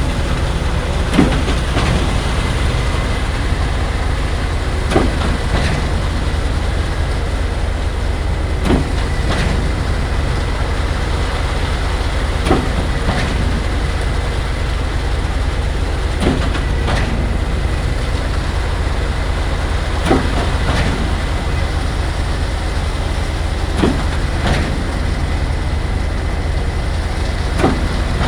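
Concrete pump running with its engine at a steady rumble and a sharp clunk about every four seconds, each followed by a softer knock, as the pump's pistons change stroke.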